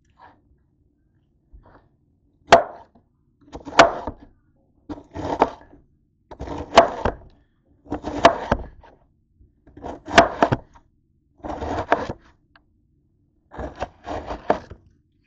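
Large knife slicing through a head of cabbage against a cutting board: about eight separate cuts, one every second and a half or so, beginning about two and a half seconds in.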